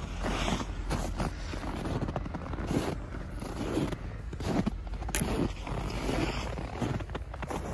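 Footsteps crunching in snow at a walking pace, with a sharp snap about five seconds in.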